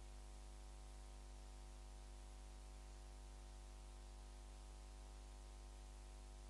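Near silence: a faint, steady electrical hum with light hiss on the audio line.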